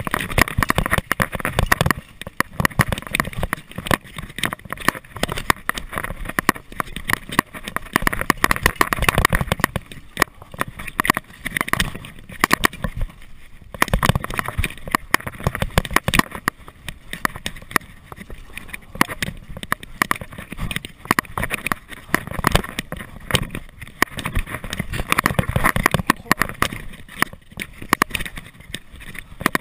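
Trek Cobia mountain bike descending a rough dirt trail at speed: constant rattling and knocking of the bike over bumps and roots, with the tyres on dirt and gravel and wind rushing over the microphone. It goes briefly smoother about a third of the way through.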